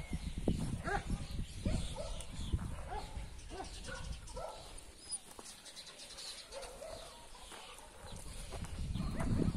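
Dogs giving short, repeated yips and whines while playing, over a low rumble that is heaviest at the start and near the end.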